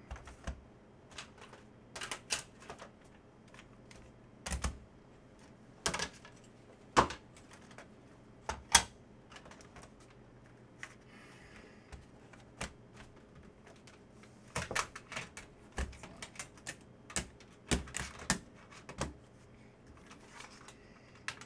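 Hard plastic graded-card slabs clicking and clacking as they are handled and set down in stacks: irregular sharp clacks, a few louder knocks against the table.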